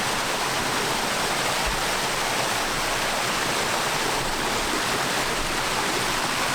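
A 30-foot waterfall plunging into its pool, a steady, even rush of falling water.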